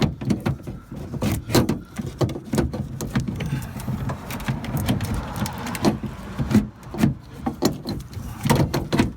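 Repeated clicks and knocks of a car door lock module and its plastic and metal parts being pushed and popped into place inside a VW Golf door, with a few seconds of scraping about midway.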